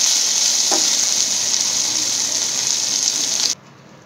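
Okra frying in oil in a nonstick pan: a steady sizzle, with one light tap under a second in. The sizzle cuts off abruptly about three and a half seconds in.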